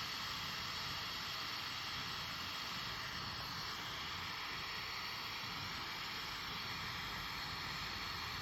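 Lampworking torch flame hissing steadily while glass is worked in it.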